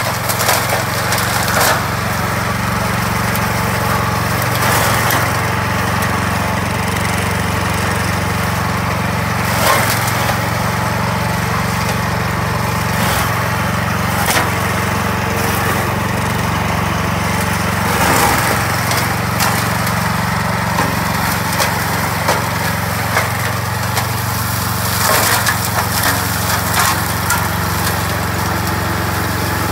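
Vezdekos TS 1000 walk-behind brush mower's small engine running steadily under load as it chops through dry weeds and brush. Sharp cracks and snaps of woody stems and debris come through repeatedly, most strongly about ten seconds in and again near 18 and 25 seconds.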